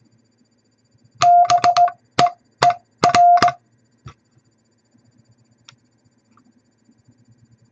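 Morse code tone of about 700 Hz spelling BEER: dah-dit-dit-dit, dit, dit, dit-dah-dit. Each tone starts and stops with a sharp click.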